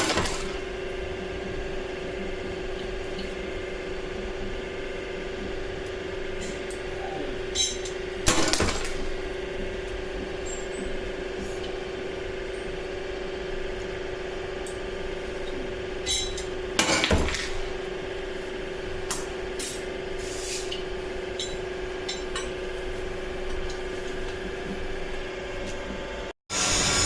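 Steady machine hum in a steel fabrication shop, broken by scattered metal clinks and two louder knocks.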